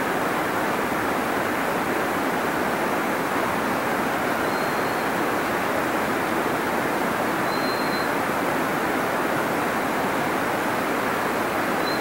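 Steady, unbroken rush of Laurel Falls' falling water. A few faint, short high notes sound over it, about four and a half and eight seconds in.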